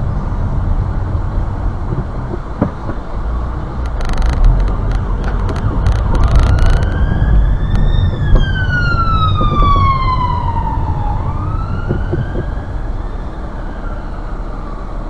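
Peugeot ambulance's siren wailing in one slow rise and fall, coming in about six seconds in, starting another rise and fading out. Under it is the steady low rumble of the recording car's engine and road noise.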